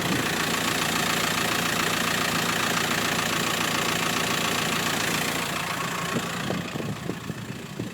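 Volkswagen T5's 1.9 TDI four-cylinder diesel idling steadily, heard close by; the sound drops off somewhat about six seconds in.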